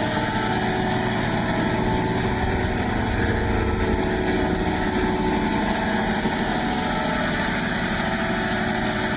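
Harsh, distorted drone, many steady tones layered over dense noise, the sound of an audio clip mangled by a stacked 'G Major' chain of video-editor effects.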